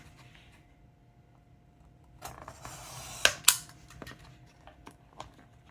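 Cardboard and paper packaging being handled and opened: a brief rustle about two seconds in, with two sharp clicks close together, then a few light ticks.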